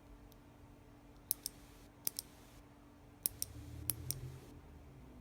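Kailh Speed Bronze clicky switch pressed four times, each press giving a quick pair of sharp, crisp clicks as its click bar snaps its little metal piece.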